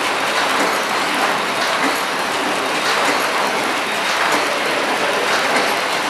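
KT-250X horizontal flow wrapping machine running, a steady mechanical clatter from its conveyor, film feed and sealing rollers, with faint repeated clicks.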